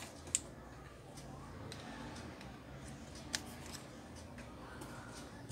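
A few light clicks and taps from a TV main circuit board being picked up and handled, over faint room background; the sharpest click is about half a second in, another comes a little past the middle.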